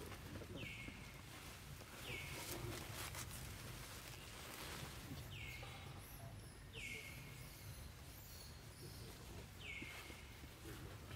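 An animal's short high call repeated five times, a few seconds apart, each note sliding down and levelling off, over a low steady rumble.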